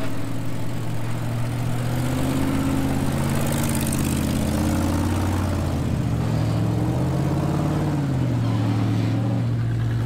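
Heavy recovery wrecker's engine running under load as it tows a disabled rock buggy up a steep dirt trail, its pitch rising and falling with engine speed.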